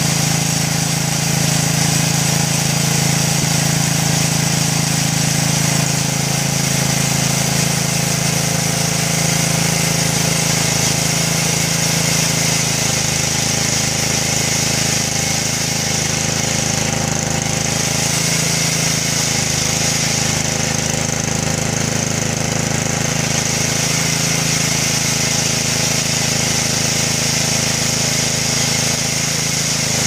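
Lawn mower engine running steadily, driving the blade of a homemade band sawmill as the saw head cuts along a log.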